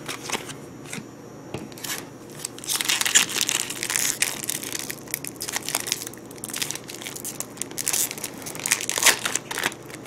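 Foil Yu-Gi-Oh booster pack being crinkled and torn open by hand, a stubborn, hard-to-open wrapper. It starts quieter, and the crackling and tearing grow loud and busy after a couple of seconds.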